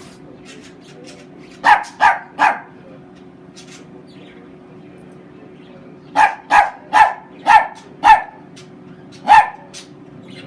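A chiweenie (Chihuahua–dachshund mix) barking in short, sharp barks: three in quick succession, a pause, then a run of five and a single bark near the end.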